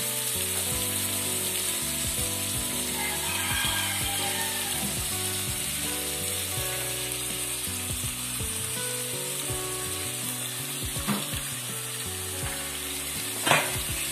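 Chopped tomato, onion and garlic sizzling as they fry in a pot on a gas stove. There is a steady hiss, and sharp knocks come twice near the end, the second the louder.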